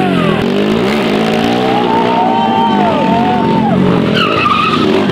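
TVS Apache RTR stunt motorcycles' single-cylinder engines revving up and down over and over, their pitch rising and falling. A brief, wavering high squeal comes about four seconds in.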